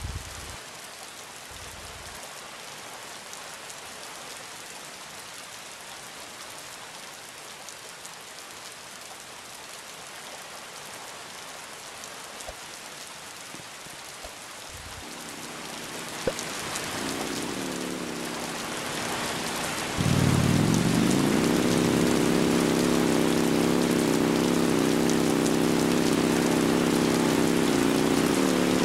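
Steady rain falling. Past the halfway point a machine hum comes in, and near two-thirds through a louder motor drone spins up quickly and then runs steadily over the rain.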